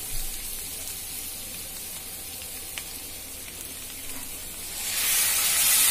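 Potatoes and masala sizzling in a hot steel pan; about five seconds in, the sizzle turns suddenly much louder and hissier as whisked curd is poured onto the hot masala.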